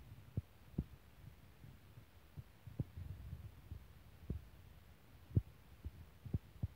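Low steady hum with soft, irregular low thumps, roughly one or two a second.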